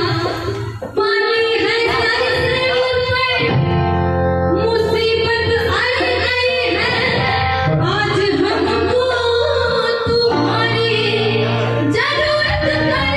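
A female voice sings a Hindi devotional bhajan, with steady sustained instrumental accompaniment beneath the melody.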